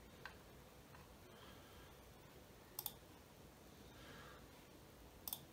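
Computer mouse clicking in near silence: a faint single click, then a quick double click about three seconds in and another near the end.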